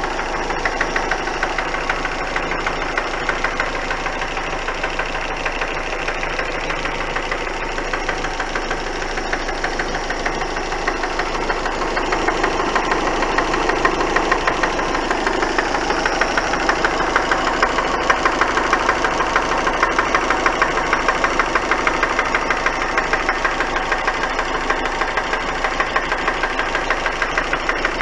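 Ford Focus engine running with a rapid, even knocking tick, a little louder about halfway through. The owner takes the knock for a knocking camshaft.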